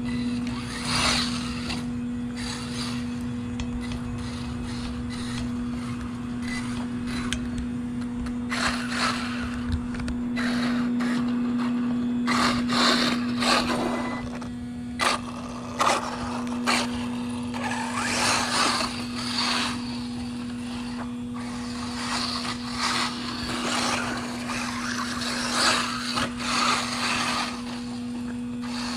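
1/8-scale RC buggy with a 1900 kV brushless motor on a Spektrum 130 A ESC, running on 4S, driving in loose dirt: irregular bursts of throttle with the tyres scrabbling and throwing sand, over a steady low hum.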